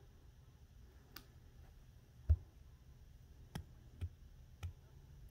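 Handling noise: a few scattered clicks and soft knocks from the phone filming the tablet being held and shifted, over a faint low hum. The loudest is a dull knock a little over two seconds in.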